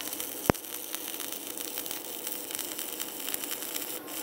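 Steady electrical hum and hiss from an inverter stick-welding setup, with one sharp click about half a second in.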